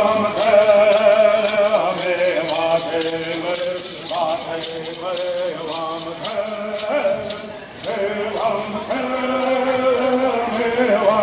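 Bird singers singing a traditional Southern California bird song in unison, with gourd rattles shaken in a steady beat.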